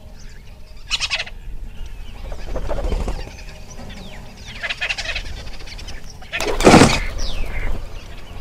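Forest ambience with assorted bird calls: short chirps and descending whistles, over a low steady background. A louder, harsh burst comes a little before seven seconds in.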